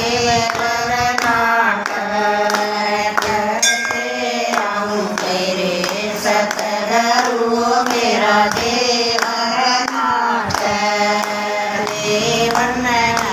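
Group of women singing a Hindu devotional bhajan together, with hand claps keeping a steady beat.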